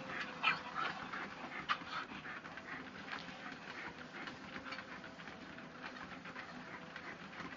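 Two Shetland sheepdogs' paws patter irregularly on a running treadmill belt over the steady hum of the treadmill, with a dog panting.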